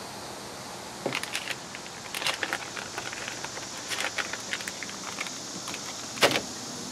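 Plastic packaging of a pack of soft-plastic fishing baits crinkling and crackling in the hands, in irregular bursts, with a sharper knock about six seconds in as the pack is set down.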